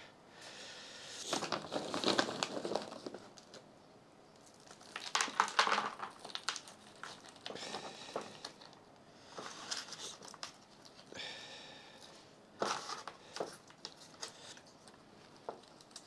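Chunky orchid bark rustling and clicking as it is pushed down around a phalaenopsis orchid's roots in a thin clear plastic pot, the pot crinkling under the hands, in several bursts.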